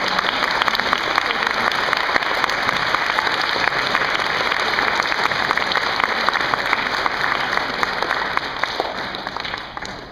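Audience applauding, a steady dense patter of many hands clapping that dies away over the last second or two.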